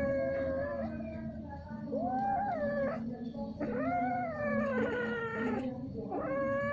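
Cats caterwauling while mating: long, drawn-out, wavering yowls, one after another with short breaks, one of them rising and falling in pitch.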